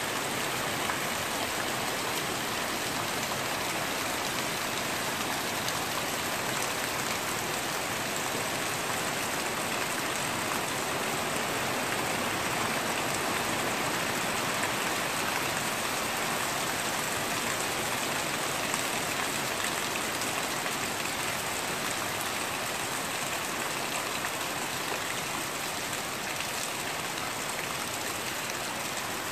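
Heavy rain falling steadily, with water pouring off a roof edge.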